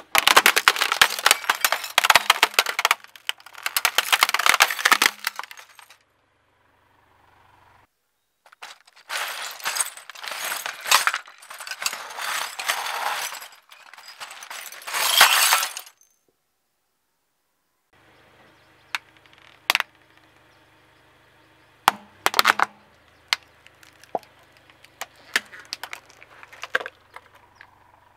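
A car tyre crushing a plastic-framed quartz wall clock: its glass cover cracks and shatters in a long dense crunching that goes on, after a pause, in a second long stretch of grinding glass. Later a hollow plastic toy gives way in separate sharp plastic snaps and cracks over a faint low hum.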